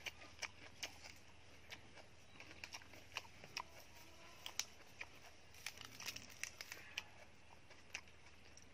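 Lettuce leaves and crisp crepe crackling and tearing as they are handled by hand, in many small irregular clicks, along with mouth smacks from chewing.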